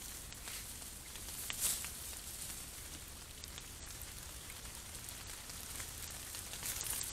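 Raccoon kits rustling through dry grass and leaf litter: soft scattered crackles over a faint steady hiss, with one louder crackle about one and a half seconds in.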